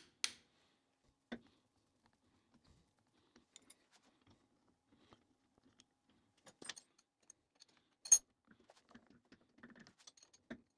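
Hammer taps on the steel shifter cam at the start, then sparse quiet metallic clicks and clinks as the cam-following block and actuating cam of a gearbox shift mechanism are fitted and moved by hand. One sharp click about eight seconds in is the loudest.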